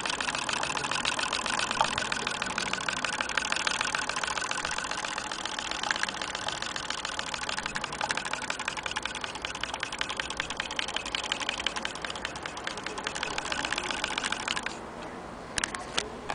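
Antique Willcox & Gibbs single-thread chain-stitch sewing machine running fast, stitching through denim: a dense, even clatter of rapid needle and mechanism ticks. It stops suddenly near the end, followed by a few sharp clicks.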